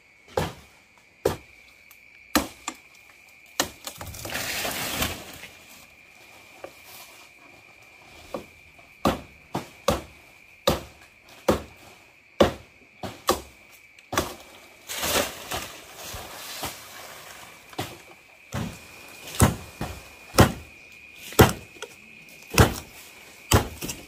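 Repeated chopping blows, about one a second, with two spells of rustling in between. A steady high insect trill goes on underneath.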